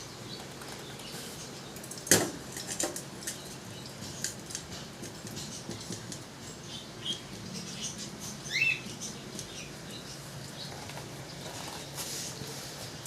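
Scattered light clicks and taps of small hard objects being handled, with one sharp knock about two seconds in and a short rising chirp about eight and a half seconds in.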